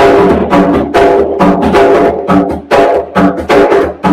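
Barrel hand drum played with bare hands in a steady rhythm of about three strikes a second, mixing deep open tones with sharper slaps. The rhythm is the Haitian Hollandais, which sounds a lot like Puerto Rican plena.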